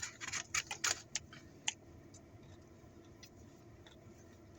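Close-up eating noises: a quick run of sharp clicks and crackles in the first second and a half or so. After that only a faint, steady low background hum.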